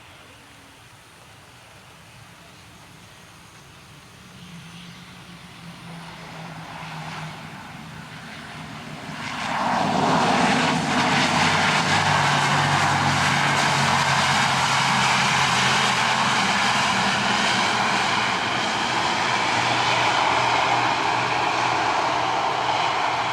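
Wings Air ATR 72 turboprop landing in heavy rain: the engines and propellers grow louder over several seconds, then jump sharply to a loud, steady roar about nine and a half seconds in as the aircraft comes close.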